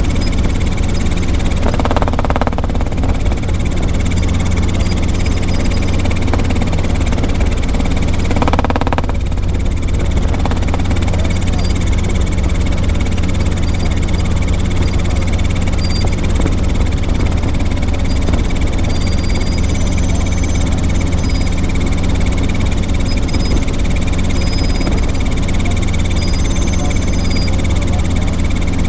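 Robinson R22 helicopter in cruise, heard from inside the cockpit: the steady, loud drone of its two-blade main rotor and piston engine over a constant low hum. Two brief bursts of mid-pitched sound rise over it, about two seconds in and again near nine seconds.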